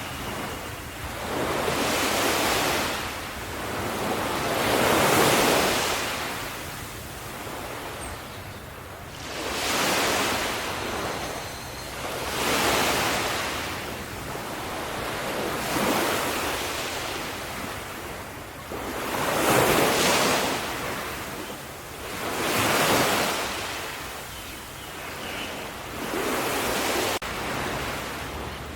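Sea waves breaking on a shore, each surge of surf swelling and washing back every few seconds.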